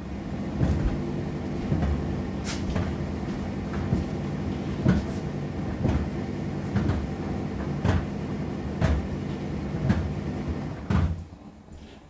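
Indesit IDC8T3 condenser tumble dryer running: the drum turns with a steady motor hum and a knock about once a second from the tumbling load. The drum stops about eleven seconds in, leaving a quieter hum.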